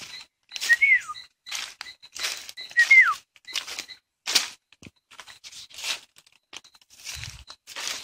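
Footsteps crunching and rustling through dry leaf litter at a walking pace, roughly one step every 0.7 seconds. Two short whistles that slide downward sound about one and three seconds in.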